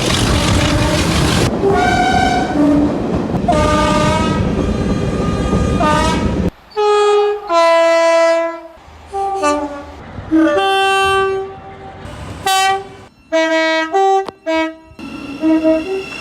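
Train horns. First a train passes with loud rumbling and clatter while its horn sounds in short blasts; then, after a sudden cut about six and a half seconds in, a series of short two-tone horn blasts alternating high and low notes.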